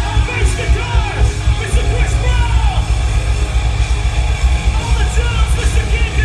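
Live hard rock band playing loud, with heavy drums and bass under a lead line that bends up and down in pitch.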